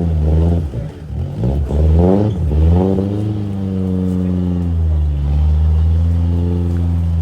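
Lada Niva engine revving up and down in quick throttle blips for about the first three seconds, then running more steadily with slow rises and falls in pitch.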